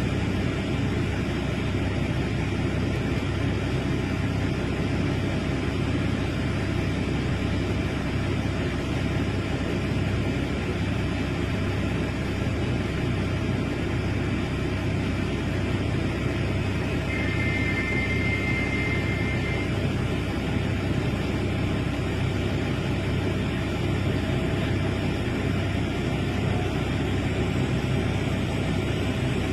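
Large excavator's diesel engine running steadily, a continuous low drone. A brief high two-note tone sounds faintly a little past halfway.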